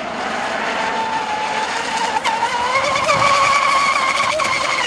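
Motor of a radio-controlled catamaran speedboat whining at high revs as the boat runs flat out, its pitch climbing about halfway through.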